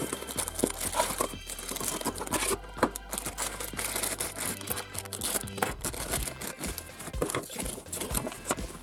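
A cardboard box opened by hand and a plastic sachet crinkled and torn open, an irregular run of rustles, crackles and small tearing sounds.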